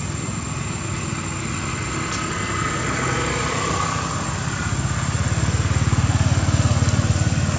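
A small engine running steadily at idle, a low, evenly pulsing rumble that grows louder about five seconds in.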